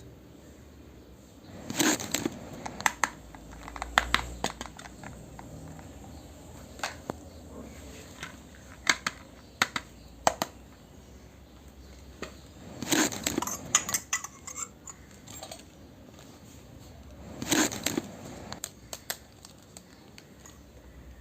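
Small pieces of a miniature toy kitchen set being handled and set down: scattered light clicks and taps, with three short bursts of busier handling noise.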